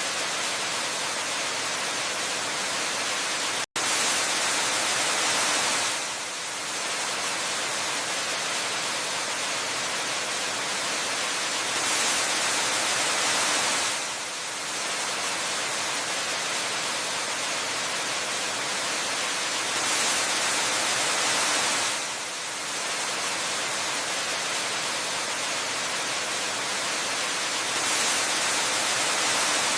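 Waterfall rushing as a steady, even hiss that swells a little about every eight seconds. The sound cuts out to silence for an instant about four seconds in.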